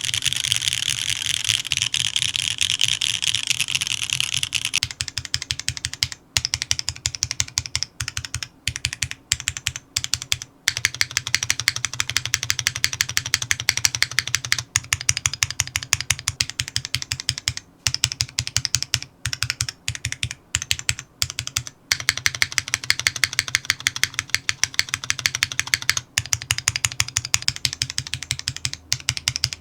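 Fast typing on an o-ring-mounted ORI CLS-3 60% custom mechanical keyboard with an aluminium plate, lubed and filmed Cherry MX2A Orange tactile switches and GMK keycaps. There is a quick run of clacks with short pauses between bursts, and the first few seconds are denser and brighter than the rest.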